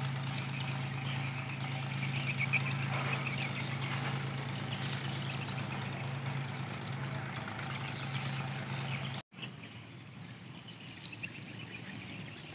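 Boat's diesel engine running with a steady low drone. It cuts off abruptly about nine seconds in, leaving a quieter background.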